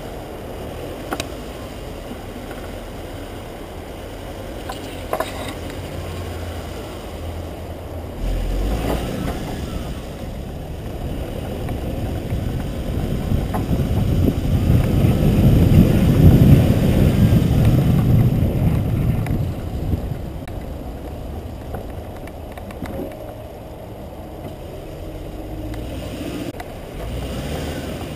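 Off-road driving noise from a Suzuki Grand Vitara 2.4, heard from a camera mounted on its body: a low rumble of engine and tyres on a rough dirt track, with a few sharp knocks. The rumble grows louder about halfway through, then eases.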